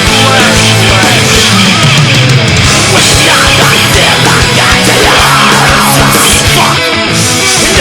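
Loud heavy metal music with fast, pounding drums.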